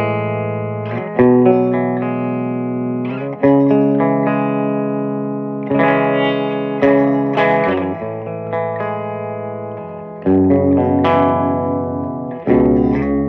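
Electric guitar played through a Peavey Bandit 112 combo amp: chords struck and left to ring and fade, a new chord every second or two.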